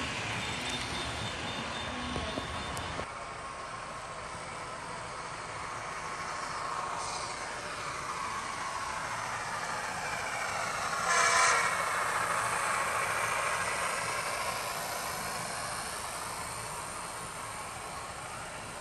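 Model trains running on a layout: wheels rolling along the track and a small motor whining in a tone that rises and falls. The sound drops abruptly about three seconds in, and a short louder burst comes a little past halfway.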